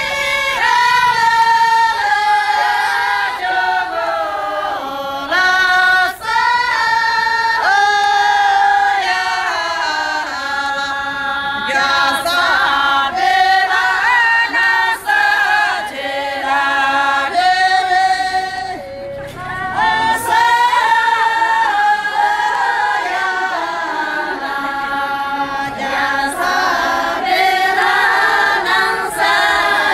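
Group of Sherpa women singing a sherbu dance song together, unaccompanied, in long held phrases that rise and fall.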